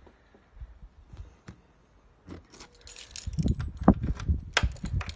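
A bunch of keys jangling and clicking as the ignition key is pushed into the scooter's ignition lock and turned. Faint scattered clicks at first, then a quick flurry of clicks and knocks about three seconds in.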